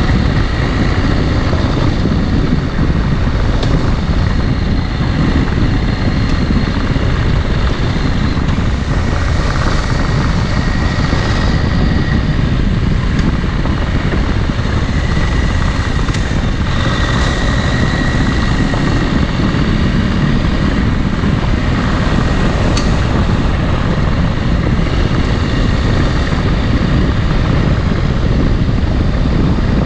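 Adventure motorcycle under way: the engine running, with wind rushing over the camera microphone and a faint whine that comes and goes.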